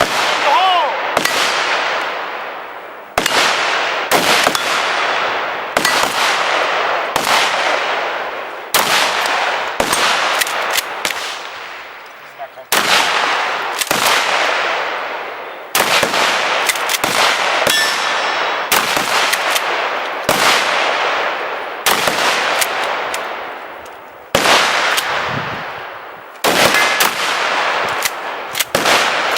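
A string of more than twenty gunshots, fired one at a time at uneven intervals of about one to two seconds, each shot trailing off in a long echo.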